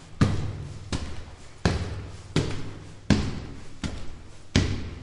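Footsteps climbing stone stairs: seven evenly spaced steps about 0.7 s apart, each a sharp hit with a short low ring after it.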